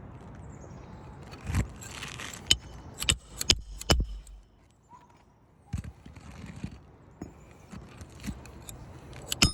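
A run of sharp knocks with metallic jingling of loose nails, most of it between about one and a half and four seconds in, then fainter clicks. Typical of new 1-inch roofing nails being handled and driven to fasten a replacement asphalt shingle.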